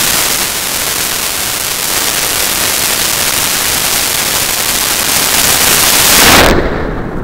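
Loud, steady rushing roar picked up by a camera riding on a model rocket as it lifts off on an Aerotech H148R motor and climbs. The noise swells about six seconds in, then dies away quickly near the end.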